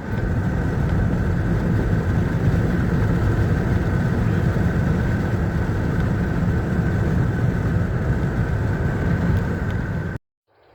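Steady engine and road rumble inside a work truck's cab while driving, with a faint constant whine above it; it stops suddenly near the end.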